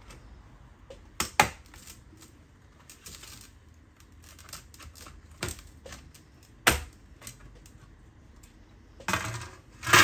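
Bottom cover of an HP EliteBook 840 G6 being pried off with a plastic prying tool: its retaining clips snap loose in several sharp clicks a few seconds apart. Near the end comes a louder clattering scrape as the cover comes away from the chassis.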